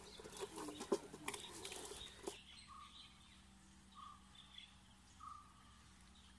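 A few faint clicks and knocks of handling, then a bird giving a short, plain call about every second and a bit, four times.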